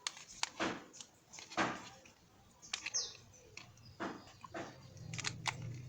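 Scattered sharp clicks and knocks of small parts and tools being handled, with one brief high, falling squeak about three seconds in and a low hum coming up near the end.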